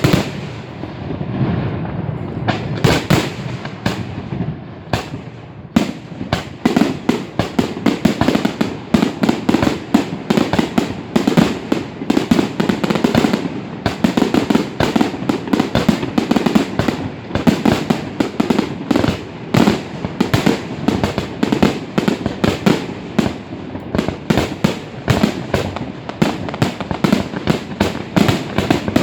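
Aerial fireworks display going off: bangs and crackling bursts follow one another, growing dense and rapid from about six seconds in, several bangs a second. Recorded on a mobile phone.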